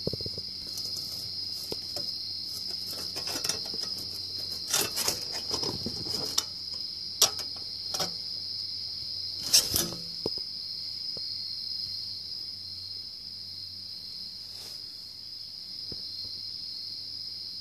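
A steady, high-pitched continuous drone of unknown origin, the mystery night sound or insects, with a faint low hum beneath. Several rustling clicks and knocks come in the middle.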